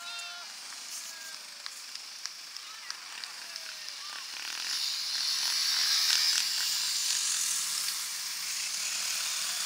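Several off-road motorcycles riding a snow course, their engines and tyres getting louder as the bikes come past close by from about halfway through, with a few sharp clicks and short pitched calls before that.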